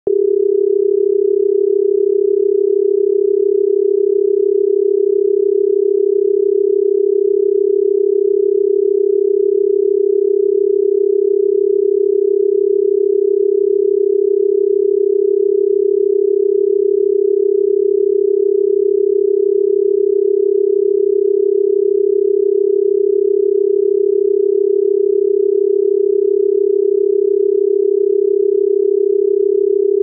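South African telephone dial tone: a continuous 400 Hz tone, amplitude-modulated at 33 Hz, signalling that the exchange is ready to receive the number to be dialled.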